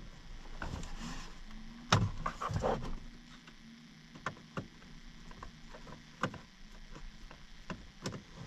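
Scattered clicks and knocks of plastic trim and a switch being worked loose on a pickup's steering column, the sharpest about two seconds in.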